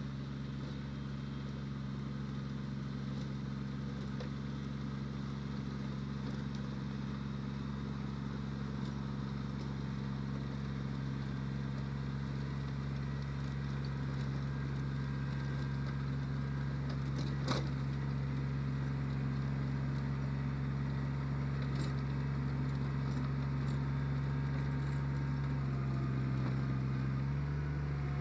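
Kubota BX2360 compact tractor's three-cylinder diesel running at a steady working speed while it mows tall grass with its mid-mount mower, growing gradually louder as it approaches. A single sharp click about two-thirds of the way through, and the engine note shifts near the end.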